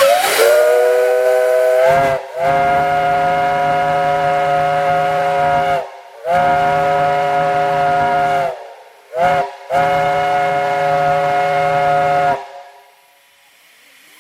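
Central of Georgia five-chime steam whistle blown in a series of long blasts, its several notes sounding together as one chord. The first blast slides up into pitch, and a short toot comes between the last two.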